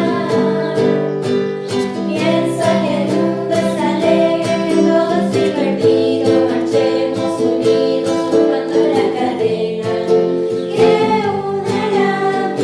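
A song: singing with guitar accompaniment.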